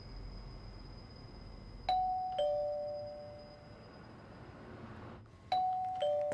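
Two-tone doorbell chime rung twice, a higher ding and then a lower dong, each note ringing on and fading. It sounds about two seconds in and again near the end.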